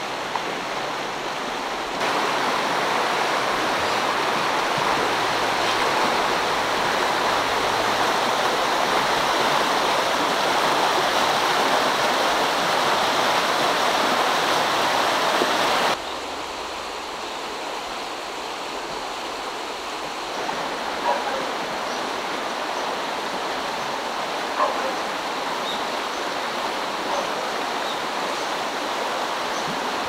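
Shallow mountain stream rushing over rocks in riffles, a steady hiss of running water. It gets louder about two seconds in and drops sharply about halfway through.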